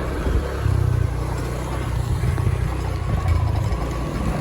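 Motorbike engine running steadily on the move, a low rumble under a rush of wind noise.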